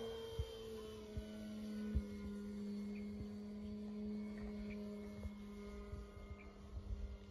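Brushless electric motor and 15x8 propeller of an Extreme Flight 60-inch Laser V1 RC aerobatic plane in flight, a steady far-off hum that drops a little in pitch after about a second and grows fainter near the end. A few soft low thumps.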